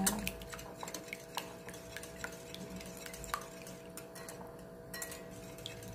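Wire whisk beating an egg-and-milk batter in a cut-glass bowl, with scattered light clicks of the wires against the glass.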